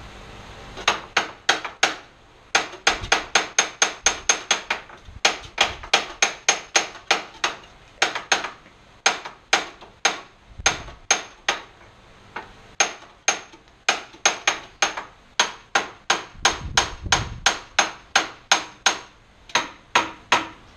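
Hammer blows on metal: dozens of sharp, ringing strikes in quick runs of several, about three or four a second, with short pauses between runs, as a stuck part of an old rusty band saw is being knocked loose.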